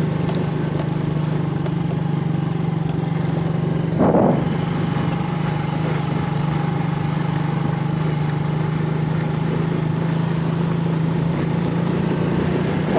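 Small motorcycle engine running steadily at an even pitch while the bike rides along a bumpy dirt road, heard from the seat, with a brief louder burst about four seconds in.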